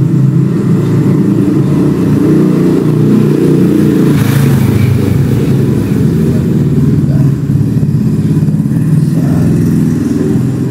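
An engine running steadily and loudly, low-pitched, with a brief hiss about four seconds in.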